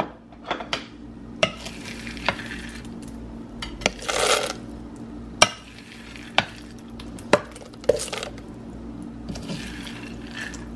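Wooden spoon scooping and scraping pumpkin seeds, sesame seeds and peanuts across a ceramic plate: short scraping rasps with sharp clicks as the spoon knocks the plate and seeds rattle.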